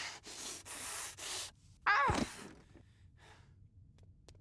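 Cartoon voice acting: three heavy, breathy gasps, then a strained vocal cry about two seconds in that drops steeply in pitch. A few faint clicks follow near the end.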